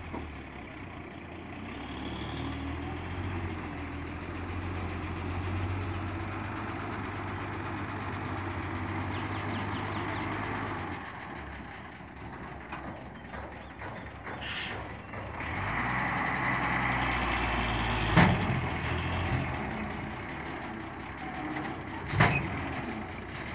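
Heavy dump truck engines running: a steady low rumble at first, then louder revving in the second half as a truck maneuvers. Two sharp knocks stand out in the second half.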